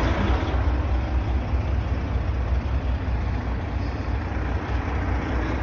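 Vehicle engine idling: a steady low rumble with an even hiss above it.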